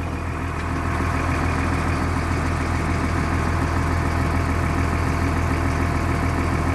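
1996 Blue Bird school bus diesel engine idling steadily, still cold after a cold start following a month of sitting.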